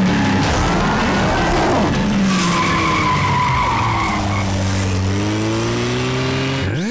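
Cartoon car sound effects: an engine running with a tyre squeal lasting about two seconds, then the engine revving up in pitch near the end.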